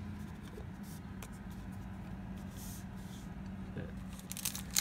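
Faint rustling and light clicks of trading cards being handled over a steady low hum, with a booster pack wrapper starting to crinkle near the end.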